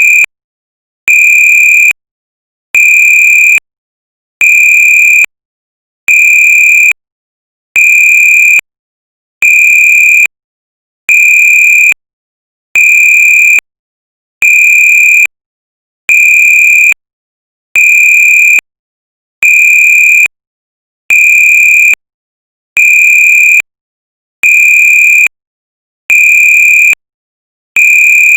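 Military whistle sound effect: a loud, high, steady-pitched blast of just under a second, repeated at an even pace of about one every 1.7 seconds with silence between.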